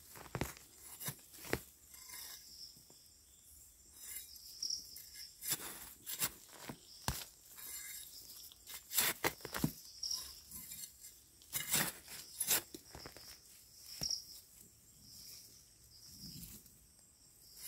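Hands pulling termite mushrooms out of the forest floor, with scattered snaps and crackles of stems, soil and leaf litter. Insects chirp faintly now and then.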